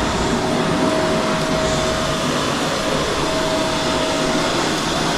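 Eureka Whirlwind NEN110A dual-cyclone bagless canister vacuum running steadily while its combo floor tool works over carpet. A rushing-air hiss carries a thin whine that drops out briefly a couple of times.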